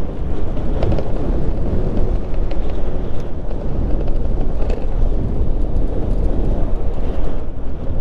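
Steady wind and road rumble from riding an Onyx RCR electric moped, strongest in the low end, with a few faint ticks.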